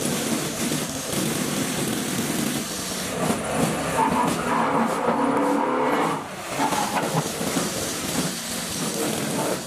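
Pile-driving machinery running as it drives a steel mandrel carrying a PVC sheet pile down into wet ground: steady, loud mechanical noise with a short dip about six seconds in.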